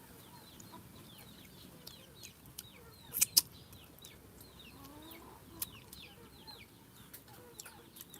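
Chickens: many short, high, descending peeps repeating without pause, with a faint low cluck about five seconds in. Two sharp clicks a little after three seconds in are the loudest sounds.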